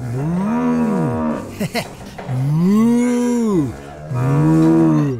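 Three long drawn-out moos, each rising and then falling in pitch.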